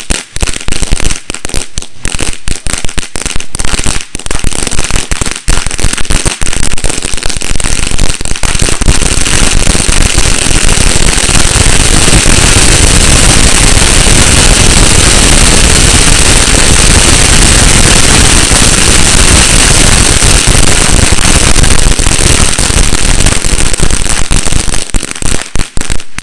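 Thousands of Black Cat firecrackers going off in a chain: rapid separate bangs at first, thickening about eight seconds in into a continuous barrage of overlapping bangs, which thins out near the end.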